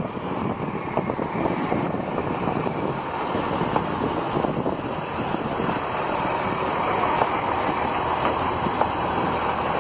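A Class 166 diesel multiple unit rolls slowly past along the platform, giving a steady rumble of its underfloor diesel engines and wheels on the rails.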